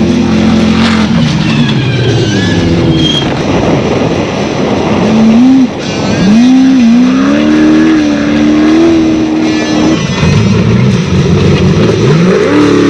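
Off-road race car engine running hard, its pitch climbing steeply as it accelerates, holding high, dropping about ten seconds in and climbing again near the end, over a steady rushing noise.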